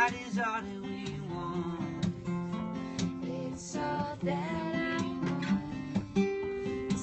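Live acoustic music: two acoustic guitars strummed and picked together, with a voice singing short phrases over them.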